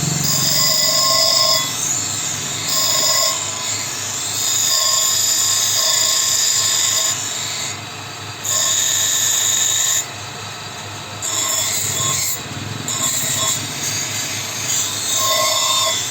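Power tool running under load in spells of a second or two, with a high squeal that comes and goes as it bites and eases off.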